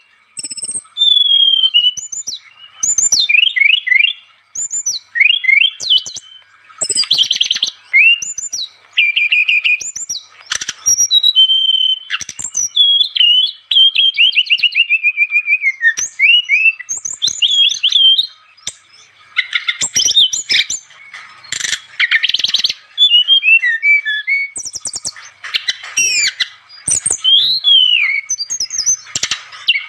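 Brown-chested jungle flycatcher (SRDC) singing busily: fast, varied phrases of whistled slurs, sharp chirps and quick trills, one after another with only short pauses.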